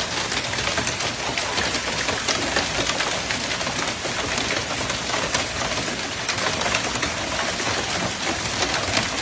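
Hailstones pelting a hard surface: a dense, steady clatter of countless small impacts over a rushing storm noise.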